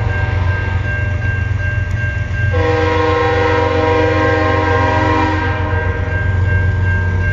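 Union Pacific locomotive air horn sounding long blasts for a grade crossing. A louder chord comes in about two and a half seconds in and stops about five seconds in. Under it a crossing bell rings steadily over a low rumble.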